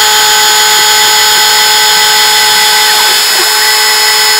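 CNC router spindle running with a steady high whine while a 1/16-inch flat end mill cuts a part out of 1/8-inch plywood.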